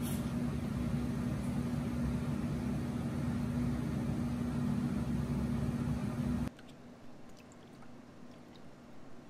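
A steady machine hum with a constant low tone, cut off abruptly about six and a half seconds in. Then faint trickling of water poured from a glass jug into the tank of a small desktop air cooler.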